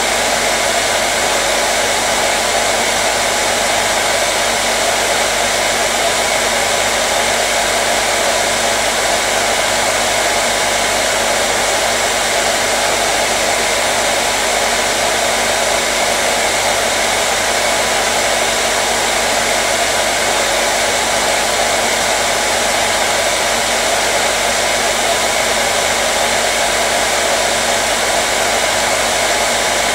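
Hair dryer running continuously with a steady, unchanging rush of air and motor hum.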